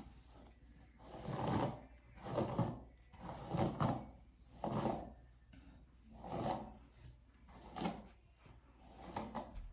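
A series of about seven soft rubbing strokes, each about half a second long and spaced roughly a second apart.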